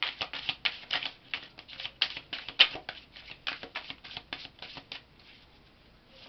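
Tarot deck being shuffled by hand: a quick run of card flicks and slaps, several a second, that stops about five seconds in.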